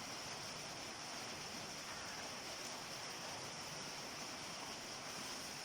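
Steady, even hiss of background noise with a faint continuous high-pitched whine above it. There are no clicks, crackles or other events.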